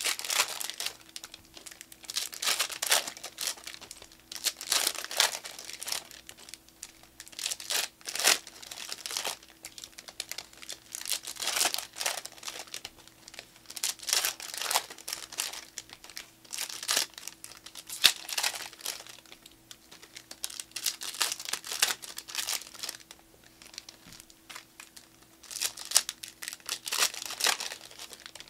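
Foil trading-card pack wrappers crinkling and tearing as packs are ripped open, in irregular bursts every second or two.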